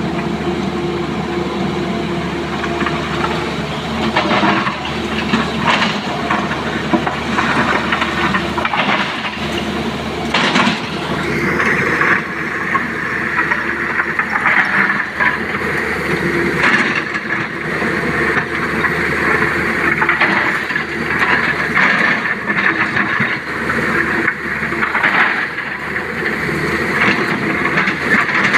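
Sany crawler excavator's diesel engine running under load, with its bucket scraping and clattering through blasted rock. About a third of the way in, a higher whine rises and then holds steady.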